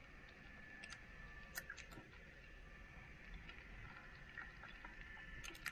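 Near silence: faint outdoor background with a few scattered soft clicks.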